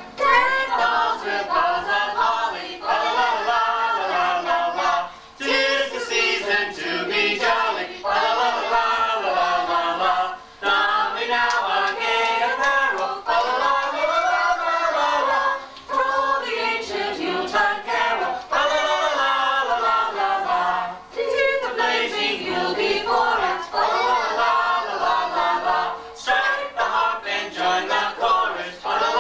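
A family group of adults and children singing a Christmas carol together, unaccompanied, in phrases broken by short breaths about every five seconds.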